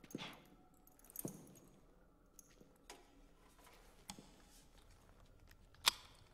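Metal clicks and clanks of firearms being handled and lifted from a wall rack: a handful of separate sharp knocks about a second apart, the loudest near the end.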